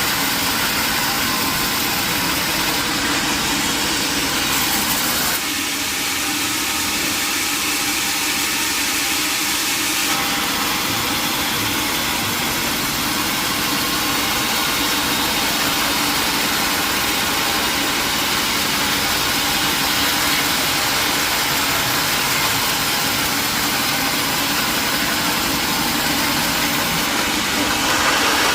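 Sawmill machinery running steadily with a loud, dense hiss, changing abruptly about five and ten seconds in.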